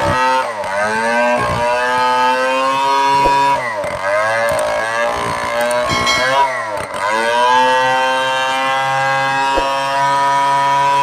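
Stihl 070 chainsaw's large single-cylinder two-stroke engine running at high speed, its pitch dropping sharply and climbing back about three times.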